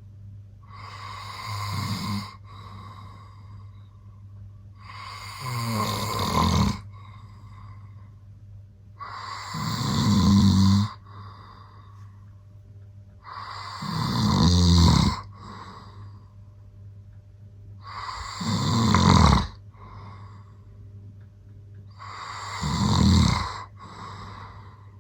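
A man snoring in his sleep: six snores about every four seconds, each swelling in loudness on the in-breath and then cutting off sharply.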